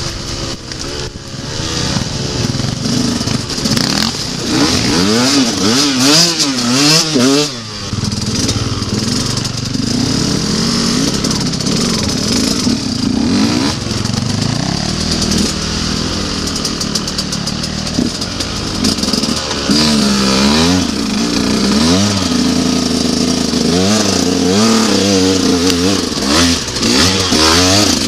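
Enduro dirt bike engine heard from on board the bike, its pitch rising and falling over and over as the throttle is worked on a rough trail. It drops off briefly about eight seconds in, then picks up again.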